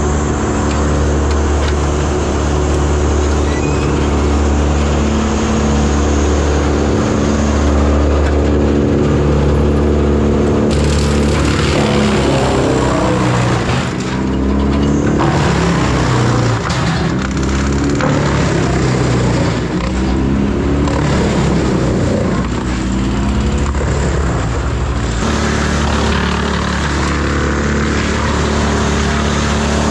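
Mini excavator's diesel engine running steadily under load, its pitch shifting up and down around the middle as the hydraulics work the grapple.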